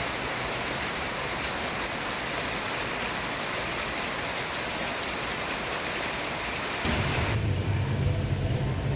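Steady rain falling, an even hiss. About seven seconds in, it gives way to a low steady rumble.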